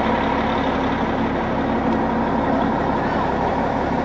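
Tour bus engine running with a steady hum, heard from inside the passenger cabin while the bus drives.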